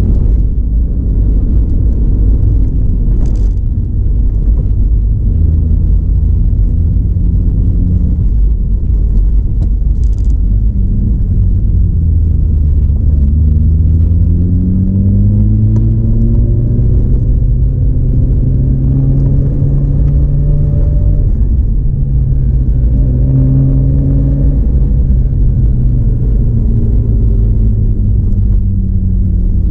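Mazda RX-8's two-rotor rotary engine pulling along the road over a constant low road rumble. The engine note climbs in pitch partway through, dips and climbs again, then falls away near the end.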